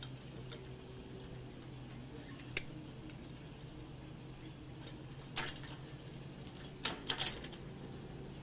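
Pliers clinking against a stiff old stainless shackle and sail block as the shackle is worked loose: a few sharp metal clicks and taps, loudest in a quick cluster about seven seconds in, over a steady low hum.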